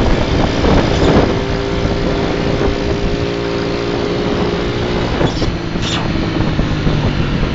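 Vehicle engine running steadily at cruising speed, with wind and road noise.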